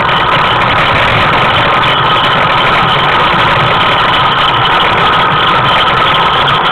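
Steady loud rumble and rattle of a dog-pulled tricycle rolling over asphalt, unbroken throughout.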